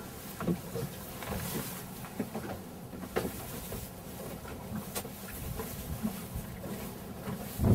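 Low, steady rumble of wind and water on an open boat deck, with a couple of sharp knocks about three and five seconds in.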